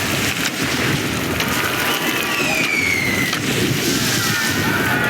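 Film sound effects of a downpour: a steady, dense wash of rain and wind noise. Many short high squeaks and chirps run through it, and a longer falling whistle-like glide comes about halfway through.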